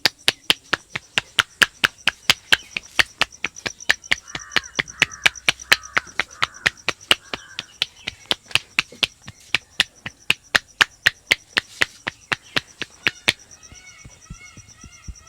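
Rapid, even percussive strokes of a barber's hands during a head massage, about five sharp claps a second, stopping suddenly near the end. Short chirping calls follow after they stop, over a faint steady high whine.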